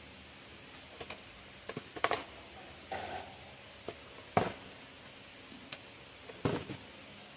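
Scattered clicks, taps and rustling as a new plastic fuel pump module is lifted out of its cardboard box and packing and handled. The loudest knocks come about two seconds and four and a half seconds in.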